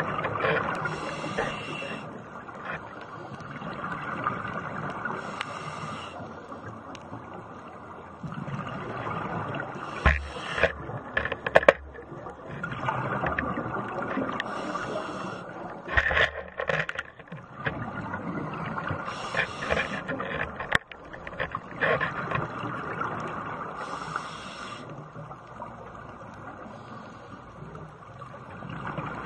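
Scuba regulator breathing underwater: a hissing inhalation about every four to five seconds, with bubbly exhalation noise in between, and scattered sharp clicks.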